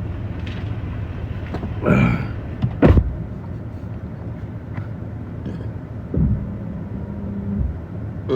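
Steady low drone of a running vehicle, with a short voice-like sound about two seconds in and a sharp knock about a second later.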